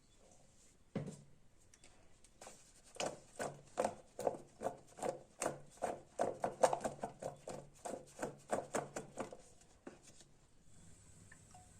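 Knife chopping on a cutting board: one knock about a second in, then a steady run of sharp cuts, about two to three a second, stopping near the end.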